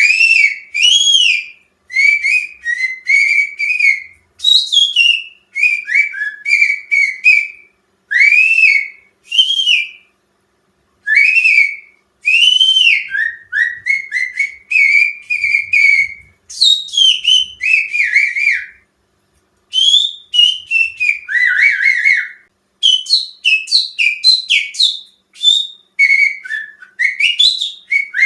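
A person finger-whistling an imitation of cucak ijo (greater green leafbird) song, as a lure song to prompt the bird to sing. Quick phrases of warbling notes that glide up and down, each a second or two long, with short breaks between.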